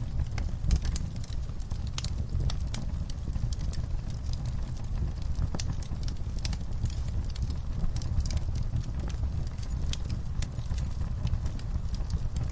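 Fire burning: a steady low rumble of flames under irregular sharp crackles and pops, with one louder pop about a second in.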